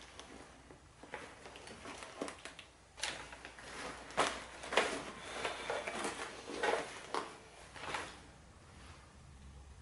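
Rifle and load-bearing gear being handled and moved about: a string of irregular clacks, scrapes and rustles, busiest in the middle.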